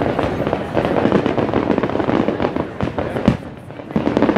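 Aerial fireworks display: a dense run of crackling and popping bursts, with one sharp bang about three seconds in.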